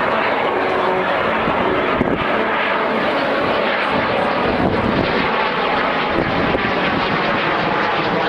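Fighter jet flying overhead: loud, steady jet engine noise.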